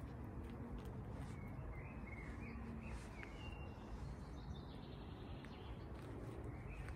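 Outdoor background noise with a steady low rumble, and a few short, high bird chirps in the middle and again near the end.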